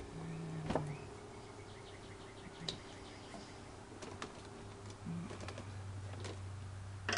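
Scattered light clicks and taps of engine wiring connectors being unplugged by hand, over a low steady hum. A louder knock at the very end.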